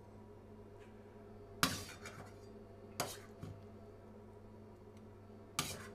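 A spoon clinking against a small metal pan three times while mushrooms are served from it, the last clink near the end, over a steady low hum.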